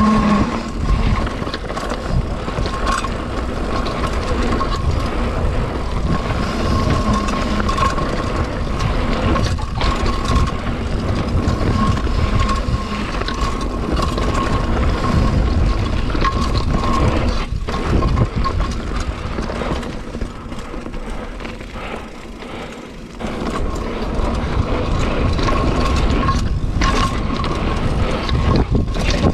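Mountain bike riding fast down a dirt and gravel forest trail: wind buffeting the microphone and the tyres running over the dirt, with the bike knocking and rattling over bumps. The noise eases for a couple of seconds a little after twenty seconds in, then picks up again.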